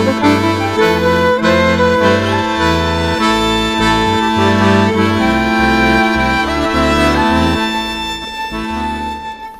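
Accordion playing a tune, with held reedy chords over bass notes that change every half second or so.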